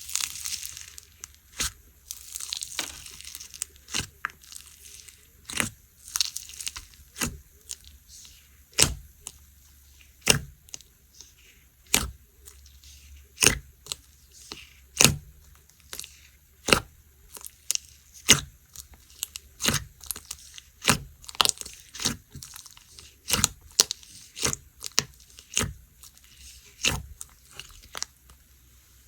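Slime being pressed and squished by hand, making sharp popping clicks about once a second, closer together later on. A crinkly rustle comes at the start.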